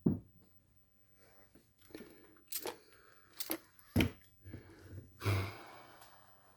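Finished kitchen knives being handled on a workbench: a scattered series of sharp clicks and knocks of steel on hard surfaces, with a brief rustling hiss about five seconds in.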